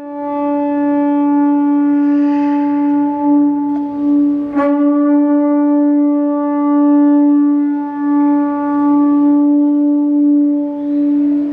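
One long, steady note from a wind instrument, held on the same pitch without a break, with a brief click about four and a half seconds in.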